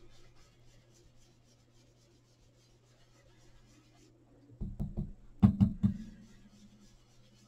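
Round blending brush rubbing ink onto card stock in quick, even strokes, about five a second. About halfway through come six or so dull knocks, the loudest sounds here, over a faint steady electrical hum.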